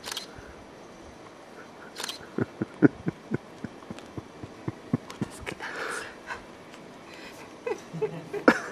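Cat crunching and chewing a freshly caught mouse: short, irregular crunches, with the loudest ones near the end.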